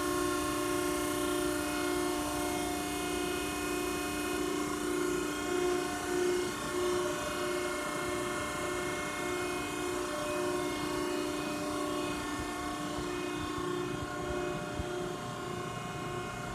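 Cincinnati 90CBX6 CNC hydraulic press brake running at idle under power: a steady hum with several tones and an even, light pulsing, with no bending stroke.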